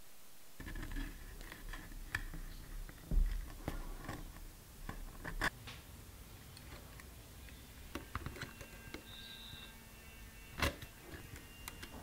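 Small clicks, taps and rustles of resistor wire leads being fitted by hand and with needle-nose pliers onto the lugs of a valve socket and the turrets of a turret board. The handling starts about half a second in, and the sharpest knocks come about three seconds in and again near the end.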